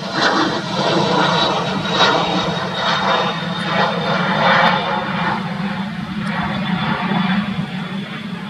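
Boeing 777-300ER's twin GE GE90-115B turbofans running at taxi power as the airliner taxis past: a loud, steady rushing engine noise with a thin high fan whine that drifts slightly lower in pitch.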